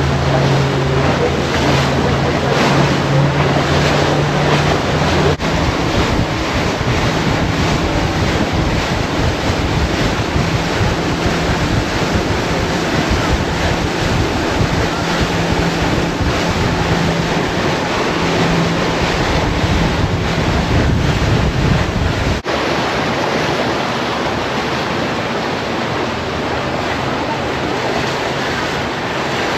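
Motorboat running at speed: a steady low engine hum under the rush of churning water and wind buffeting the microphone. The sound changes abruptly twice, and the engine hum fades after the second change.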